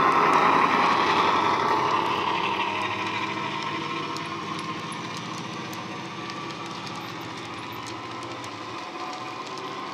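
Dapol Class 68 model locomotive's sound decoder playing a JMC Class 68 diesel engine sound through its EM2 speaker, fading as the locomotive pulls away, with light clicking from the wagon wheels on the track.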